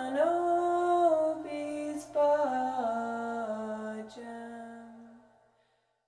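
A single voice singing a slow, unaccompanied melody, holding each note and stepping down in pitch, then fading out about five seconds in.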